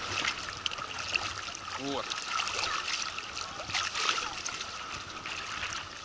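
Small sea waves lapping and splashing close to the microphone, with an irregular trickling and sloshing of shallow water.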